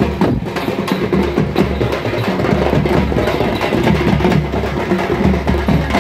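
A troupe of parai frame drums beaten with sticks in a fast, loud, driving rhythm, with deep drum beats underneath.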